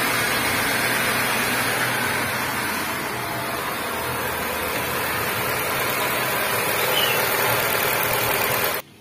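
A Nissan Grand Livina's freshly overhauled four-cylinder petrol engine idling steadily and smoothly. The sound cuts off suddenly near the end.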